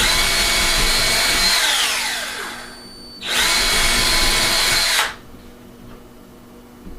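Power drill boring the screw holes for window-shade mounting brackets, in two runs. The first runs about two seconds and winds down with a falling whine. The second starts about three seconds in and stops abruptly about two seconds later.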